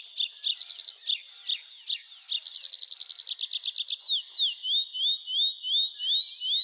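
A songbird singing: rapid trills of sharp notes, about ten a second, then, from about halfway, a series of clear rising whistled notes repeated roughly twice a second.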